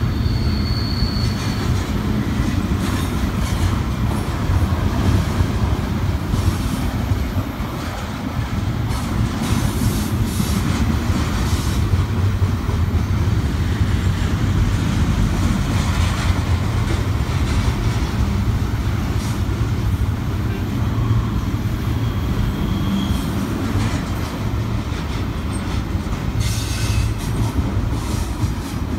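Double-stack container train's well cars rolling past on the rails: a steady rumble of wheels with scattered clanks, and two brief high wheel squeals, one near the start and one about two-thirds of the way through.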